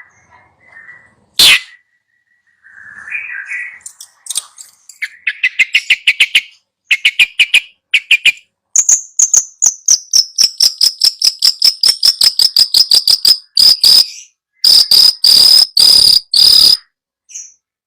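Songbird song from a cendet (long-tailed shrike) training recording. A sharp click comes about a second and a half in, then a short chattering phrase and fast runs of rapidly repeated notes. A long trill slides down in pitch, and several loud harsh bursts come near the end.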